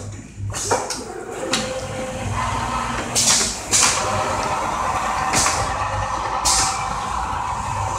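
Richpeace automatic template sewing machine with auto loader working: a steady mechanical whine sets in about two seconds in, broken by several short hisses of compressed air and a few sharp clicks.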